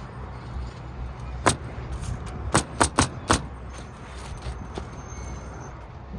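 Roofing nailer driving nails into asphalt shingles: five sharp shots, one on its own and then four in quick succession about a second later.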